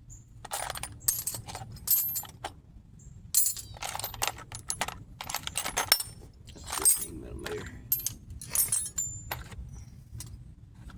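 Metal hand tools, sockets and wrenches, clinking and clattering against each other in irregular sharp clinks while being rummaged through for the right size.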